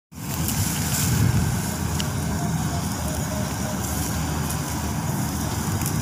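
Sunshine 1100 combine harvester running in the distance while cutting wheat, heard as a steady low rumble.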